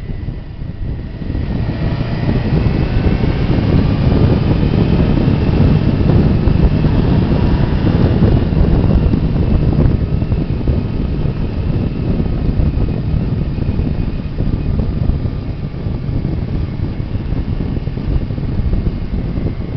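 A Suzuki GSX-R sportbike's inline-four engine under way, heard from on the bike with wind rushing past. The revs climb about two seconds in as the bike accelerates, then ease off after about ten seconds.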